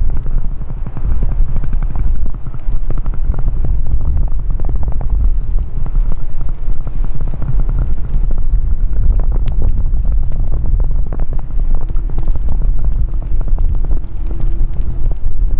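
Storm-force wind buffeting the microphone: a loud, continuous low rumble with crackling gusts. A faint steady hum joins about twelve seconds in.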